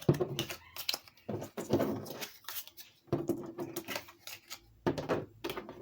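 Trading cards and their cardboard packaging being handled: a series of short rustles and taps.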